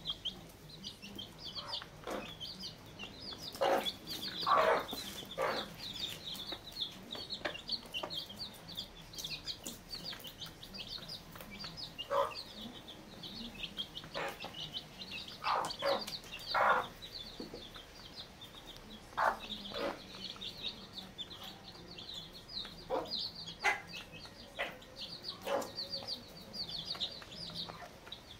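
Chicks peeping almost without a break in quick, high cheeps, while a mother hen clucks in short, lower clucks now and then, loudest about four to five seconds in and again around sixteen seconds.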